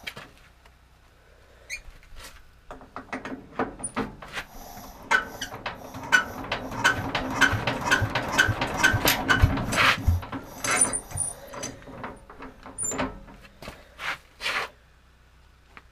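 Changfa S195M single-cylinder diesel being hand-cranked from cold, the crank turning with a regular clicking about two times a second without the engine catching. Then the cranking stops, followed by a few loose knocks and clatters.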